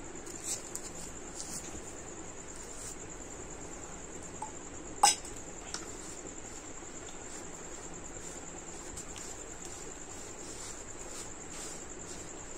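Crickets trilling steadily at a high pitch, with one sharp clink of a steel utensil about five seconds in and a few softer taps in the first two seconds.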